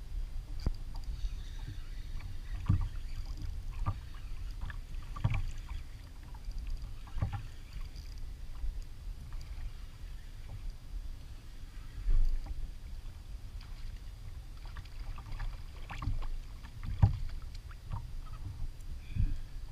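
Small waves lapping and slapping against a fishing kayak's hull over a steady low rumble of moving water, with scattered knocks and thumps against the hull.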